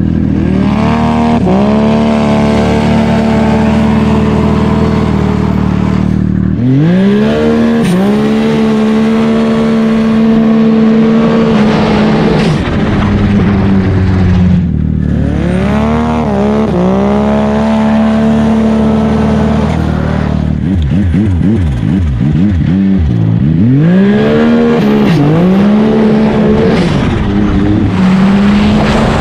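Turbocharged Yamaha Sidewinder snowmobile engine accelerating hard again and again, its pitch climbing steeply and then holding high at speed, with several quick rises and falls near the end.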